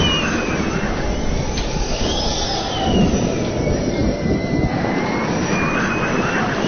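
Tornado wind: a loud, steady roar with a whistling howl above it that rises and falls in pitch.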